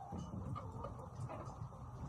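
Chickens clucking softly in short, faint calls over a low background rumble.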